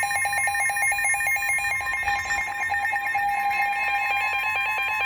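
Eton weather radio sounding its siren alert for an incoming warning: a rapid, evenly pulsing electronic alarm at about ten pulses a second, over a steady alert tone that cuts off about five seconds in.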